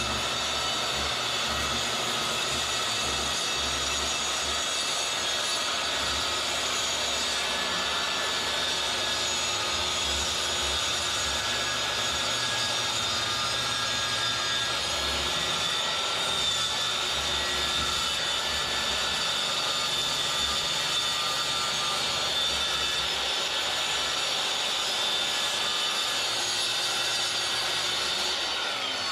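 Handheld circular saw cutting through the coop's house-wrapped wooden wall sheathing to open the nesting-box hole, a steady high whine with the rasp of the blade in the wood, cutting off at the end.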